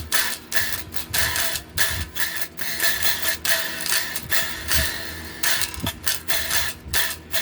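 Guitar played as a heavy-rock riff, hard chord strokes at about two a second, each ringing briefly before the next.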